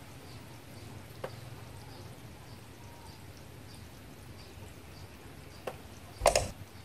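Baby black apple snails feeding: faint, scattered tiny clicks and crackles over a low steady hum. A couple of single louder clicks stand out, and there is a short louder burst about six seconds in.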